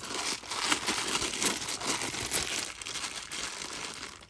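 Thin clear plastic coin bag crinkling and tearing as it is pulled open by hand, a busy crackle of small snaps.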